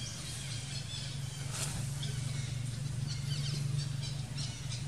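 Birds chirping in short, high bursts every so often, over a steady low hum.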